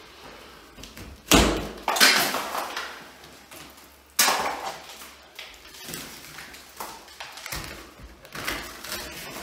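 Water-damaged gypsum drywall ceiling section being pulled and broken loose by hand: three sharp cracks about a second in, two seconds in and four seconds in, then softer crackling near the end.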